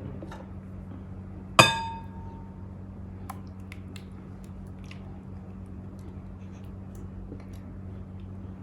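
A utensil clinks sharply against a bowl about one and a half seconds in and rings briefly, followed by faint scattered clicks as yogurt marinade is worked over a whole chicken. A steady low hum runs underneath.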